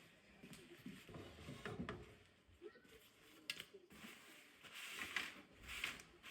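Faint clicks and scraping of cookware being handled, with a few sharp clicks midway and a longer scratchy stretch near the end.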